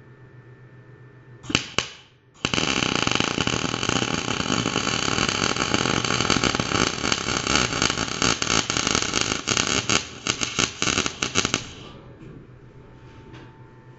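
MIG welder arc crackling as a bead is laid onto the end of a steel camshaft: a short blip of arc about one and a half seconds in, then a steady crackle for about nine seconds that stops abruptly near the end.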